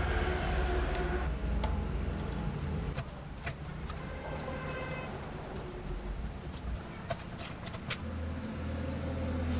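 Light clicks and clinks of small metal screws and fittings being unscrewed and handled in the plastic chassis of a vintage transistor radio, over a low steady rumble that fades after the first second and returns near the end.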